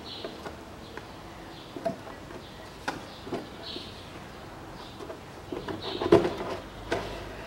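Plastic clicks, knocks and rattles as the air filter housing is prised open by hand and the old air filter is worked loose, with the loudest knock about six seconds in.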